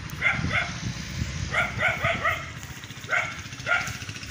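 Dog barking in short quick runs of two to four barks, with wind rumbling on the microphone.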